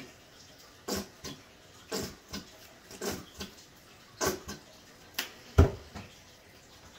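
Scattered clicks and knocks from a plastic squeeze bottle of barbecue sauce being handled and squeezed into a sauce bowl. The loudest sound is a dull thump late on, as the bottle is set down on the counter.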